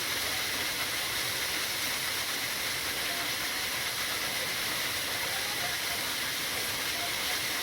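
Rushing water from a waterfall or fast stream: a steady, even hiss that holds without change.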